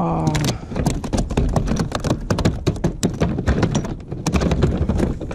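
Rapid, irregular knocking and drumming against a kayak hull, typical of a freshly caught bonito thrashing aboard.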